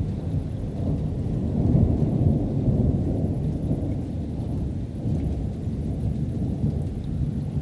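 Thunder from an approaching thunderstorm, a long low rumble that swells about two seconds in and then rolls on more evenly.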